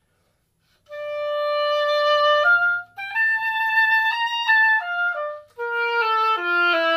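Solo oboe playing a slurred minor-key phrase, starting about a second in. It holds a note, climbs to a high B-flat and steps back down. After a quick breath it lifts into the B-flat an octave lower and steps further downward, with brief breath breaks between phrases.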